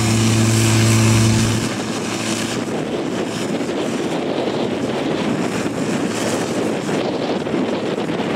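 Fire pump engine running with a steady drone, which drops away abruptly about a second and a half in. After that, wind noise on the microphone.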